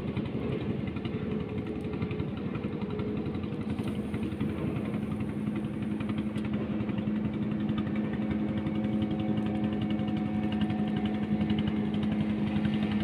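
A motor engine droning steadily in the background with a low hum, growing a little louder near the end.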